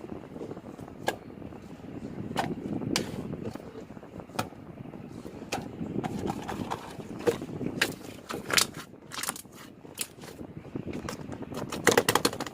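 Jelly slime being squished and kneaded by hand: a soft, sticky, squelching rustle broken by sharp popping clicks as air pockets burst, with a quick run of several pops near the end.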